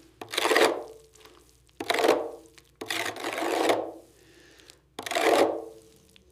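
Four long abrasive strokes scraped by hand across a surface, each starting sharply and tailing off, with short pauses between.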